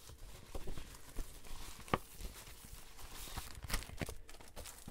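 Cellophane wrapper on a pack of patterned paper crinkling while the sheets are slid and tapped into place, with a few sharp clicks, the loudest about two seconds in and near four seconds.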